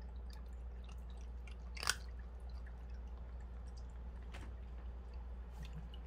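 Cat crunching dry kibble from a stainless steel feeder bowl: scattered small crunches and clicks, the sharpest about two seconds in, over a steady low hum.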